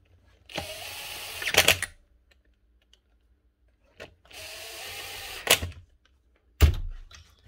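Cordless drill-driver with a long screwdriver bit running in two spurts of about a second and a half each, backing screws out of the planer's handle plate, each spurt ending in sharp clicks. A loud thump follows near the end.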